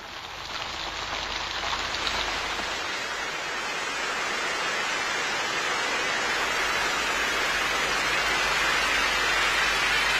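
Steady rain falling, fading in at the start and growing slowly louder.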